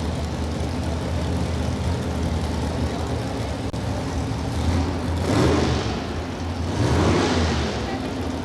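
Super stock pulling truck's engine running with a steady low drone, then revved hard twice about midway and near the end, each rev swelling up and falling back.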